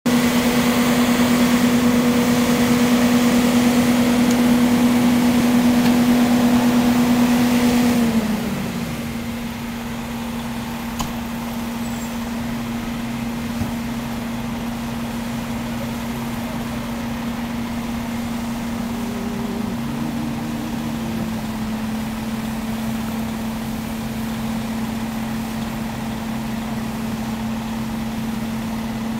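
Fire engine's engine running at a steady high speed, a loud steady hum that winds down in pitch about eight seconds in. A quieter steady engine drone continues after that.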